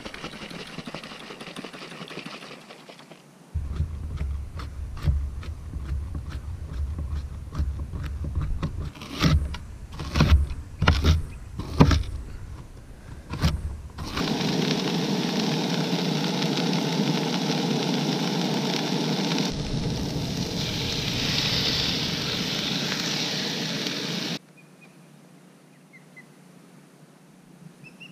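Water pouring into a glass jar, then a kitchen knife chopping an onion on a plastic cutting board, with a run of sharp strikes that grow loudest near the middle. A steady hiss of cooking on a camp stove follows for about ten seconds and stops suddenly, leaving only faint outdoor background.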